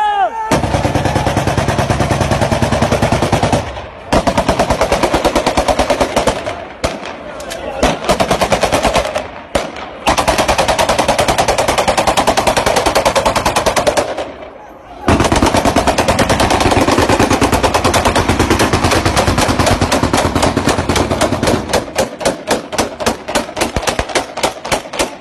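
Long bursts of rapid automatic gunfire, a few seconds each with brief pauses between, thinning near the end into separate shots a few a second: celebratory gunfire.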